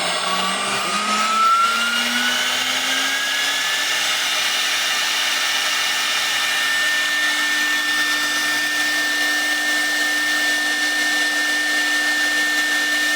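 CNC router spindle motor running free with no workpiece, an exercise run to keep it in condition. Its whine rises in pitch over the first few seconds as it spins up, then holds at a steady high pitch.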